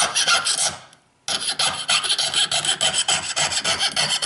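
Jeweler's saw cutting through a metal pendant held in a saw vise: quick rasping back-and-forth strokes, about four a second, with a short pause about a second in before sawing resumes.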